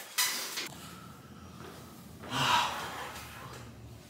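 A man breathing hard after a set of cable rows: two heavy breaths, the second and louder one about two and a half seconds in.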